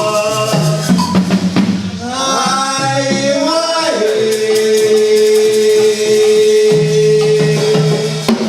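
Music: a song with shaker and drums, and one long held note through the second half.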